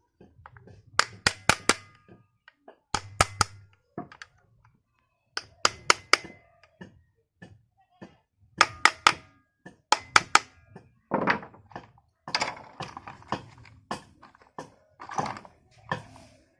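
Hard knocks on the electric planer's parts while its bearing is being replaced and the machine refitted, coming in quick groups of three or four every couple of seconds. Some knocks have a short metallic ring. In the last few seconds they give way to rougher knocking and scraping.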